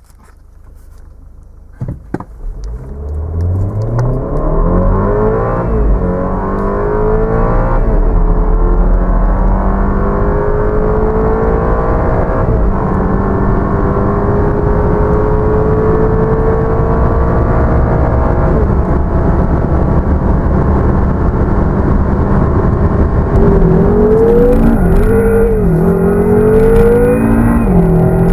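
A BMW 528i's 2.0-litre turbocharged four-cylinder engine at full throttle, heard from inside the cabin. The engine note climbs steadily and drops suddenly at each upshift of the eight-speed automatic, about four times. Near the end the pitch swings up and down unevenly several times.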